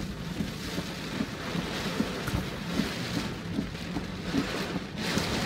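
Hurricane wind and heavy rain: a steady rushing noise with frequent low rumbles and knocks from gusts. The sound changes abruptly about five seconds in.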